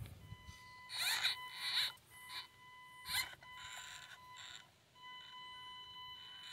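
Axial SCX24 micro RC crawler with a P90 motor driving over rock: a steady high electric whine from the motor, breaking off briefly twice, with about half a dozen short, louder bursts of noise in the first few seconds as it works its way up.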